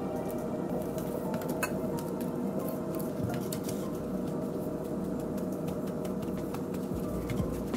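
Quiet food-prep handling: fingers dusting flour into shiitake mushroom caps on a stainless steel tray, with a few light clicks and clinks over a steady background hum.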